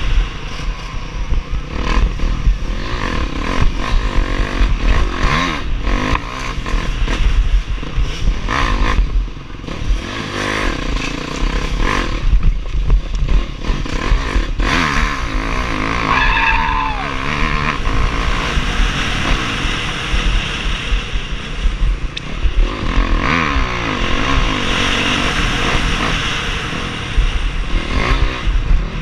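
Honda dirt bike engine revving hard, pitch rising and falling over and over as the rider accelerates, shifts and backs off, with low wind rumble on the helmet-mounted camera's microphone.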